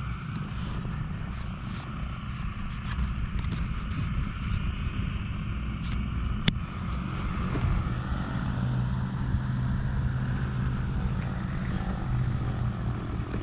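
Steady engine drone that grows louder in the second half, with one sharp metallic click about six and a half seconds in as a clip on the parachute pack is snapped.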